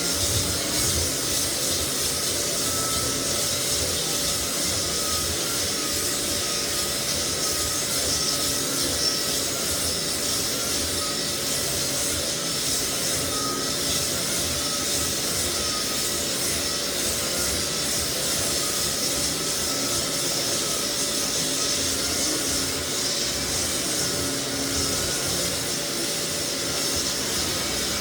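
Lagler Flip belt floor sander running steadily as it sands across cupped white oak floorboards to level them, with an even abrasive rush and a steady motor and fan hum.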